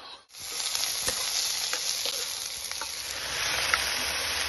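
Pork and potato pieces frying in hot oil in a pan, a steady sizzle, stirred with a metal spatula that clicks against the pan now and then. The sizzle starts after a brief gap a moment in.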